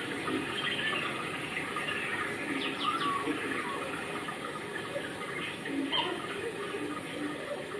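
Steady rushing background noise with a few short bird chirps, about three seconds in and again near six seconds.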